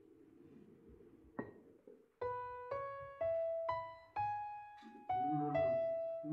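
Soundtrack piano music begins about two seconds in, after a quiet stretch with a faint knock. It plays a slow melody of single struck notes, about two a second, and lower chords join in near the end.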